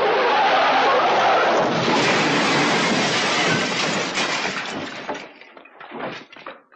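A plate-glass shop window shattering, with shards raining down onto a car parked below: a long, loud crash that dies away after about five seconds, followed by a few light knocks.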